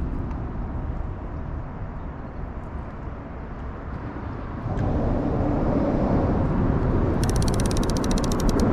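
Steady low rumble of traffic on the bridge overhead, growing louder about five seconds in. Near the end comes a rapid run of clicks.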